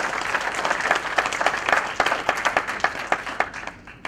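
Audience applauding: dense clapping that thins out and stops near the end.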